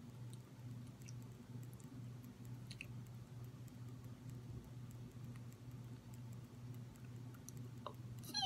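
A low, steady room hum that pulses about twice a second, with a few faint clicks.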